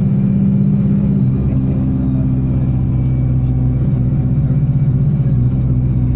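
Alexander Dennis Enviro200 single-deck bus's turbocharged diesel engine running steadily, a low drone with a faint high turbo whine above it.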